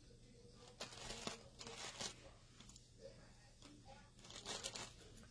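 Faint, scattered rustling and handling noises, a few short bouts of soft scraping and crinkling over a low steady hum.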